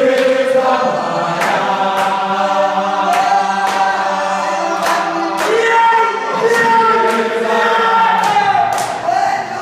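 A group of young footballers singing together in unison, a chant-like team song with several voices holding long notes. Sharp hits keep a steady beat through it, about one every three quarters of a second.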